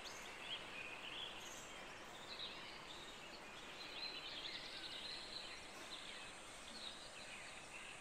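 Faint, scattered bird chirps over a steady hiss of outdoor background noise.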